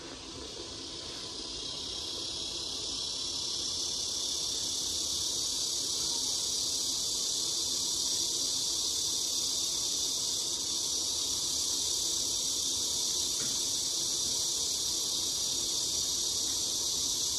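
Steady, high-pitched chorus of insects, swelling over the first two seconds and then holding level.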